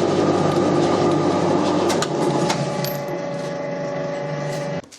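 A workshop machine tool's motor and gearing running steadily, with a few sharp metallic clicks in the middle. The machine shuts off suddenly just before the end.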